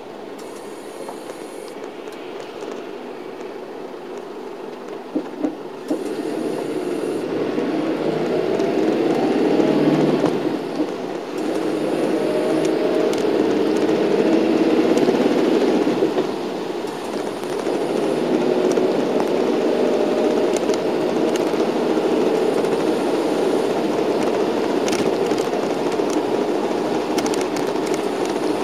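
Cabin noise inside a moving shuttle bus: steady engine and road noise that grows louder about six seconds in as the bus picks up speed, with a couple of brief dips.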